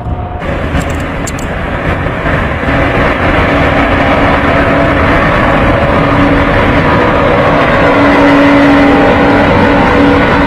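Turbofan jet engines of an Antonov An-225 Mriya running at high power as it rolls along the runway. The noise is loud and steady with a steady tone running through it, and it grows louder over the first few seconds.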